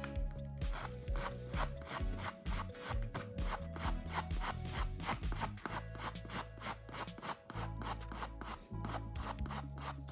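Quick repeated rasping strokes, a file or abrasive rubbing back and forth on plastic, several strokes a second, over background music.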